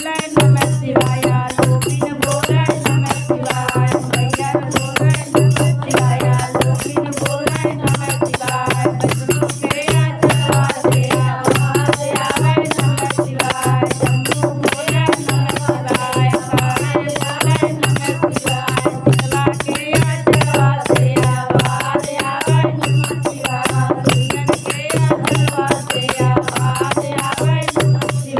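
Instrumental passage of a Hindi devotional bhajan: fast, dense rattling hand percussion over a pulsing low drum beat, with a wavering melody line.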